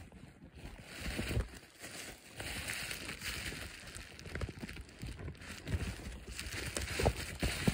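Irregular crackling and crunching of dry conifer needles and twigs on the forest floor, a run of small snaps and rustles with no steady rhythm.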